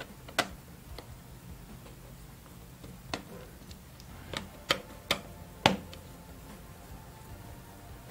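Sharp clicks and taps, about seven of them spread unevenly over the first six seconds, the loudest near the middle: the bottom cover of a Lenovo ThinkPad E14 Gen2 laptop being pressed home along its edges and a screwdriver working at its screws.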